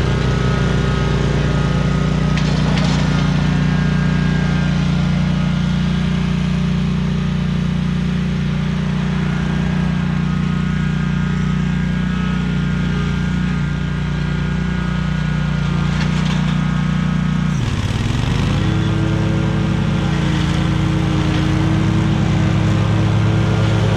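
Small gas engine of a grass-cutting machine running at high speed through tall, overgrown grass. About seventeen seconds in its pitch drops sharply as it bogs under the load, then climbs back and runs steady again.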